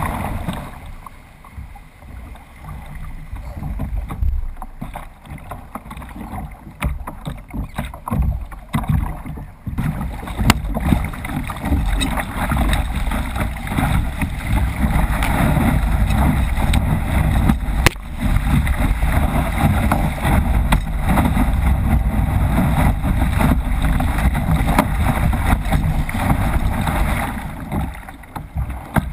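Ocean whitewater rushing and splashing around a kayak paddling through surf, heard from a bow-mounted GoPro, with wind buffeting the microphone. The wash is quieter for the first ten seconds, then turns loud and steady, with a few sharp splashes.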